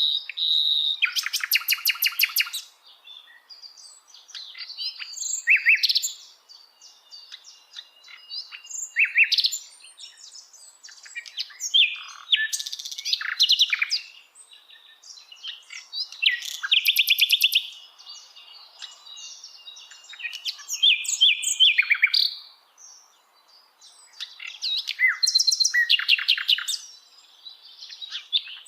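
Sikatan londo flycatcher singing: bouts of high, varied warbling phrases every few seconds, several of them with rapid trills of fast-repeated notes, separated by short pauses.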